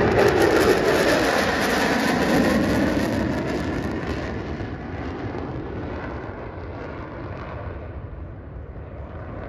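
Jet aircraft flying past in formation: jet engine noise, loudest at the start and fading steadily as the jets move away.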